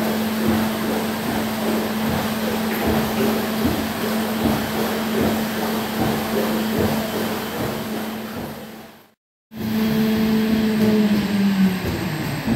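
Equine water treadmill running: a steady motor hum over the wash of water and irregular knocks as the horse walks in it. The sound cuts out for a moment partway through, and near the end the hum falls in pitch and stops as the treadmill winds down.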